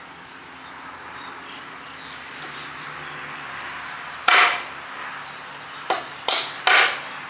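Corded power drill boring into a hardwood plank in short bursts: one burst a bit past halfway, then three more in quick succession near the end.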